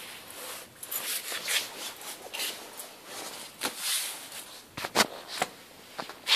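Irregular clicks, creaks and short knocks at uneven intervals from a BMW E46, the strange noise its owner is trying to show.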